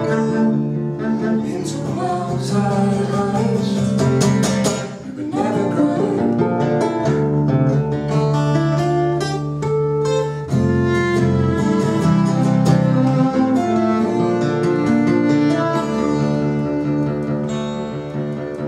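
Acoustic guitar and violin playing an instrumental tune together, with a short dip in loudness about five seconds in.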